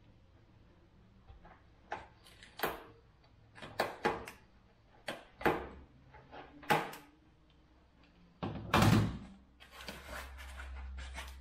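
Packaging being cut off a new bicycle frame with scissors: a series of short, crisp snips and crinkles of plastic wrap and tape. Near the end comes a louder knock, followed by continued rustling of the wrapping.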